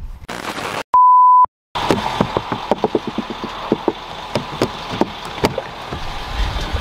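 A single pure steady beep tone, about half a second long, about a second in, set in dead silence. It is followed by a steady background noise with a run of short sharp clicks, about three or four a second.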